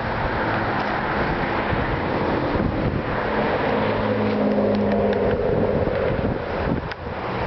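A motor vehicle running, with steady road noise and wind buffeting the microphone; an engine note stands out for a few seconds in the middle.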